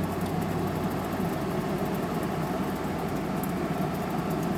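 General Electric 5,050 BTU window air conditioner's fan running steadily on high speed in fan-only mode, with the compressor off.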